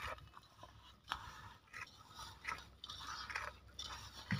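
Fingers mixing and rubbing a crumbly spice stuffing with chopped coriander in a steel plate: irregular crunchy scraping strokes of the mix against the metal, with a soft thump near the end.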